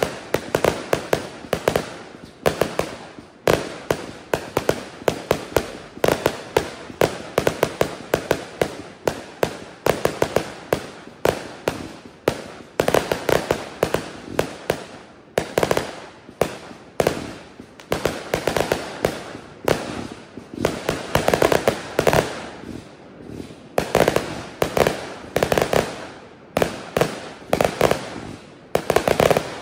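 Consumer fireworks firing in quick succession: a dense, unbroken string of sharp reports and small bursts, several a second, bunched into louder clusters every second or two.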